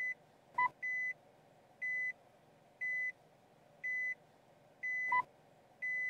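In-car electronic warning beeps from a Nissan rear-camera moving object detection system alerting to a pedestrian behind the reversing car. A steady beep repeats about once a second, with a shorter, sharper two-tone chime about half a second in and again about five seconds in, over a faint steady hum.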